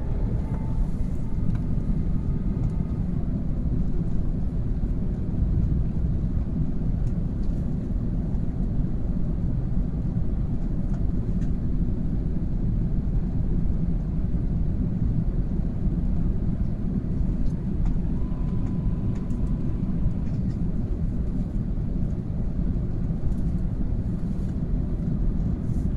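Steady low rumble inside the passenger cabin of a four-engine Airbus A380 in flight: engine and airflow noise.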